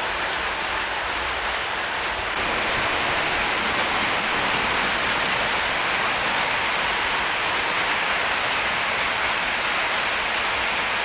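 MTH RailKing O-gauge model train running along its shelf track, a steady rolling hiss and rumble that gets a little louder about two seconds in.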